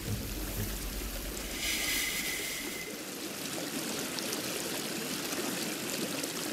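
River water running steadily over stones, an even rushing and trickling, with a brief brighter rush about two seconds in.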